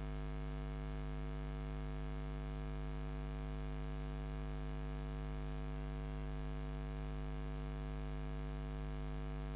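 Steady electrical mains hum picked up by the recording: a constant low hum with a buzzy stack of overtones and no other sound.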